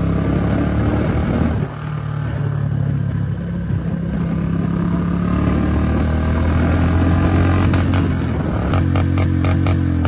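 Royal Enfield motorcycle engine running while riding, its pitch shifting about two seconds in, with a quick regular pulsing coming in near the end.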